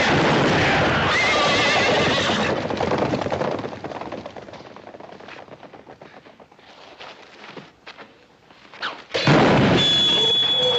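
Horses neighing and whinnying in a commotion, with scattered hoofbeats, loud at first and then fading away over several seconds. Near the end a sudden loud blast breaks in.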